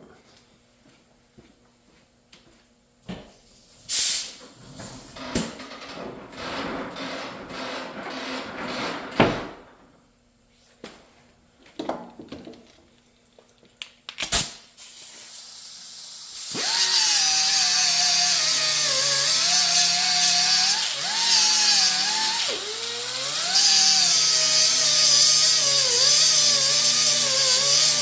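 Knocks and clatter of metal parts being handled. About halfway through, a power grinder starts and grinds down metal, its pitch dipping and recovering as it bears on the work, to free the coffee grinder's handle so it can be punched out.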